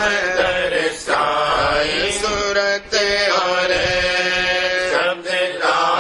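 A Radhasoami shabd (devotional hymn) sung in a chant-like style, with long held notes and a few short breaks, over a steady low drone.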